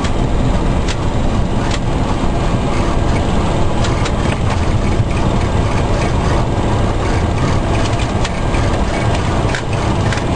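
Steady low rumble inside a Boeing 727-200's cockpit as it rolls and taxis after landing, with a few scattered light clicks.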